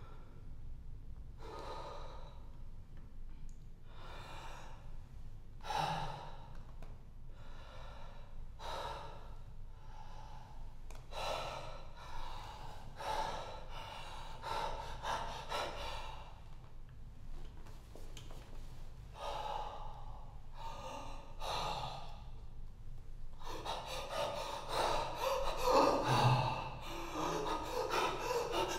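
A man's loud, deliberate breathing performed as part of a piece: separate noisy inhales and exhales one to two seconds apart, quickening into rapid panting breaths in the last few seconds.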